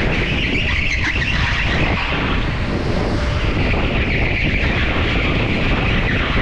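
A go-kart running at racing speed, heard from on board, with wind noise on the microphone. A high whine sits over the steady engine and tyre rumble; it drops away about two seconds in and comes back a second or so later.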